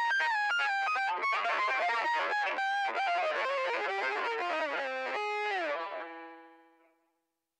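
Electric bass played through an MXR Poly Blue Octave pedal: a fast run of notes thickened by the octave effect, ending on a held note that slides down in pitch and fades away.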